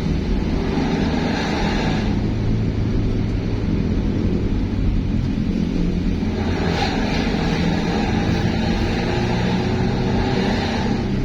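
Steady engine and road noise of vehicles driving along a road: a low engine hum under a hiss of tyres and wind that swells twice, briefly near the start and then for the second half.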